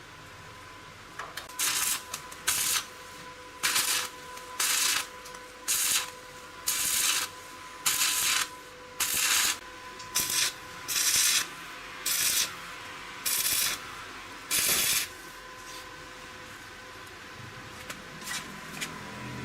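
Hand abrading strokes on a part, about fourteen of them at roughly one a second, each a short rasping rub; they stop a few seconds before the end.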